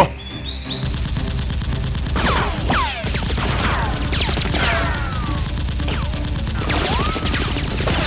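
Automatic gunfire sound effect: a rapid, steady stream of shots starting about a second in, with bullets whizzing past in falling whines. A sharp crack comes at the very start.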